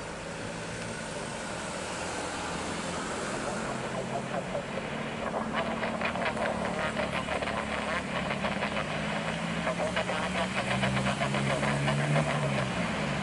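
Saudia Boeing 777's twin jet engines at takeoff thrust during the takeoff roll and initial climb. The steady roar grows louder, taking on a rough rapid crackle from about five seconds in as the airliner lifts off.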